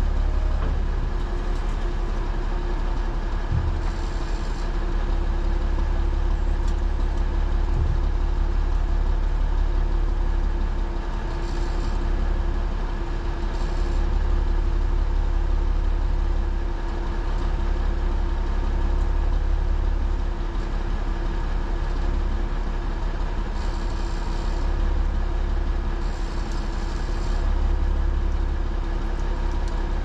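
Autocar semi truck's diesel engine idling steadily, a low rumble with a steady whine above it, while the lowboy trailer's hydraulic tail ramps are being raised.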